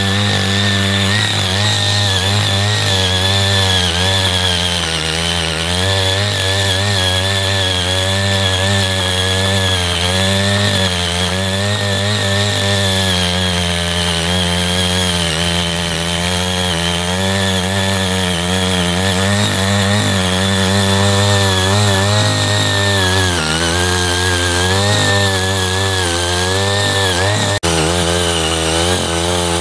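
Small engine of a CY80 walk-behind power tiller running continuously under load while ridging loosened soil, its pitch wavering up and down as the load changes. Its sound breaks off for an instant once near the end.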